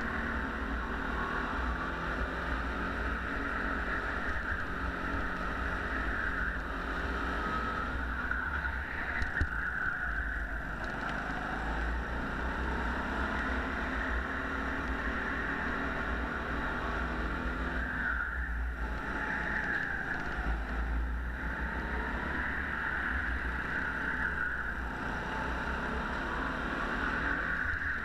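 A go-kart engine running steadily as the kart laps, with wind on the microphone and the level briefly dipping a few times. There is one sharp knock about nine seconds in.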